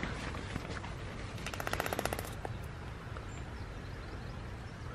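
Strong wind buffeting the microphone in a steady low rumble, with a brief fast rattle of clicks lasting under a second about a second and a half in.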